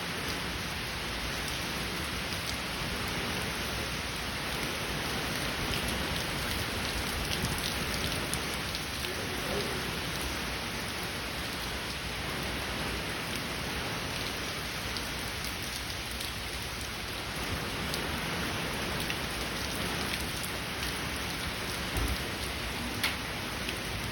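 Heavy rain falling steadily, with a few sharper drop hits standing out from the hiss.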